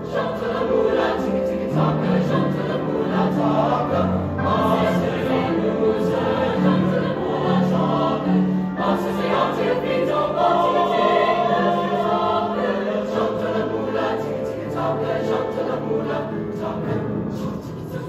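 Mixed teenage choir singing in parts, accompanied by a grand piano. It gets a little softer near the end.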